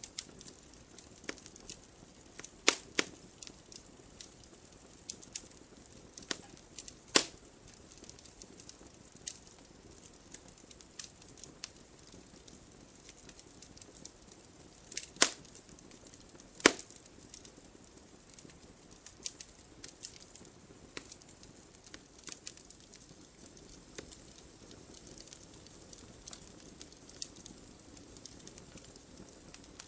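Wood fire burning in a fireplace: a low steady hiss with scattered sharp crackles and pops, the loudest about 3, 7, 15 and 17 seconds in.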